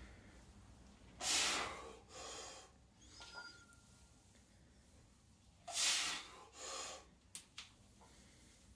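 A man breathing hard through a set of barbell back squats: two loud breaths, about four and a half seconds apart, each followed by a softer one. Two short clicks come near the end.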